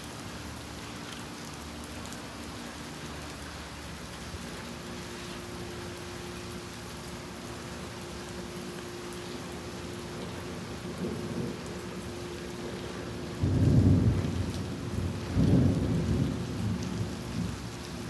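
Steady rain falling, with a low rumble of thunder breaking in about three-quarters of the way through and a second rumble a couple of seconds later, each fading over a second or two.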